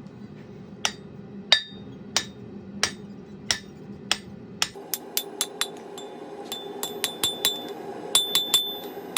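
Blacksmith's hammer striking steel on an anvil while forging a hold-down: evenly spaced blows about every two-thirds of a second, then about halfway through quicker, lighter strikes that ring.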